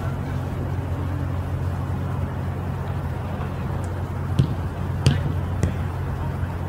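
Soccer ball being kicked, three sharp thuds in quick succession past the middle, over a steady low hum.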